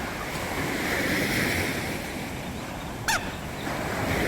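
Sea waves washing onto the beach, a steady rolling surf that swells and eases. A short, sharp call that falls in pitch cuts in once about three seconds in.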